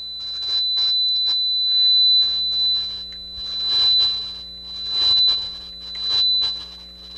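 A steady high-pitched tone through the deck's audio, with scratchy crackling noise that swells and fades roughly once a second as the dirty potentiometer is worked back and forth; the pot is still scratchy after the contact cleaner.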